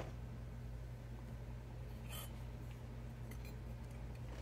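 Quiet workbench room tone: a steady low hum, with one faint short rustle about two seconds in and a few faint ticks later on.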